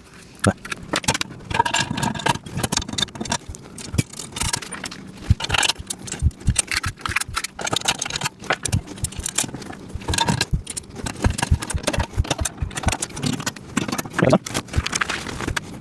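Small steel parts and hardware clinking and rattling as a steel welding-table frame is bolted together: a steady run of irregular metallic clicks and knocks.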